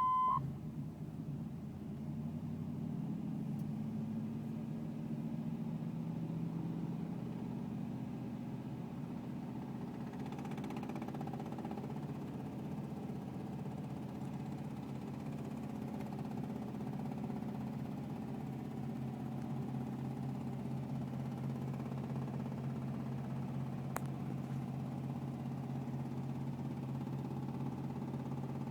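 1984 Chevrolet Camaro engine idling steadily, its note settling over the first few seconds, with one sharp tick about 24 seconds in. The owner hears an intermittent ticking from this engine, hot or cold, and does not know its cause.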